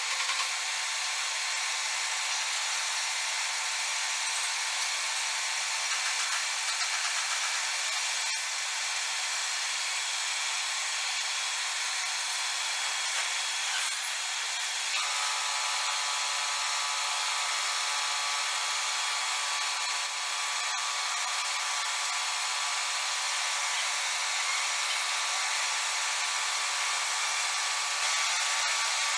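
Metal lathe running at speed, a rectangular block in a four-jaw chuck spinning while the turning tool cuts its round boss. A steady machining hiss with a whine of several steady tones, and a further set of tones joining about halfway through.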